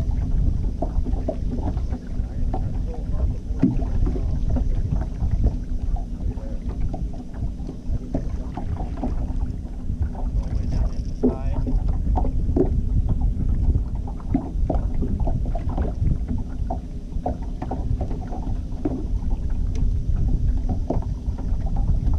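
Fishing boat moving slowly at trolling speed: a steady low motor hum and rumble, with wind on the microphone and frequent short knocks of water slapping the hull.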